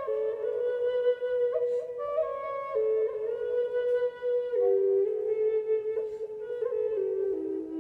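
Wooden Native American flute playing a slow melody of held notes that steps gradually downward in pitch, with quick grace-note flicks between some notes.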